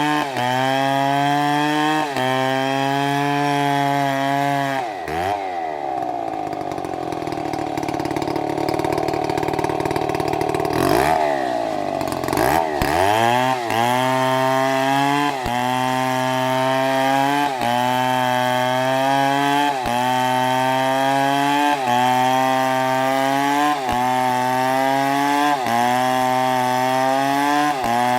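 A large chainsaw runs under load in a cut. Its engine note sags and recovers roughly every two seconds. About five seconds in, the note drops and turns rough for several seconds before climbing back.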